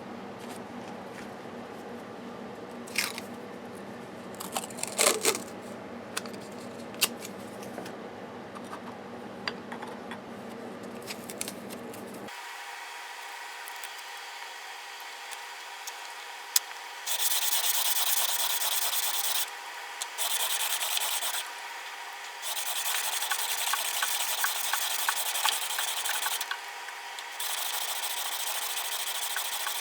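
A steel plane iron being rubbed on an abrasive surface, with a scraping hiss that comes in stretches of a few seconds each in the second half. A few sharp clicks are heard in the first part.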